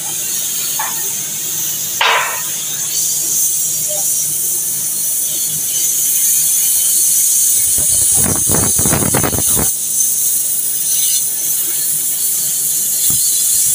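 Oxygen-and-gas cutting torch giving a steady high hiss as it cuts through a steel pipe pile. About eight seconds in, a burst of irregular, rumbling noise lasts nearly two seconds.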